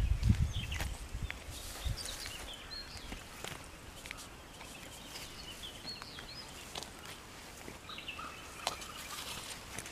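Small birds chirping and calling with short, high whistled notes, including a quick run of notes near the end, among scattered sharp clicks. A low rumble on the microphone fades out within the first two seconds.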